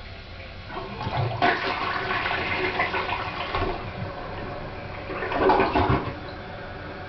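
Toilet flushing: water rushes loudly starting about a second in, eases off, then surges again about five seconds in before dying down.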